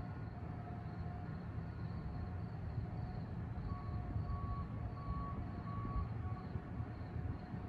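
Ballast regulator's diesel engine running down the track, a steady low rumble, with four evenly spaced beeps about halfway through.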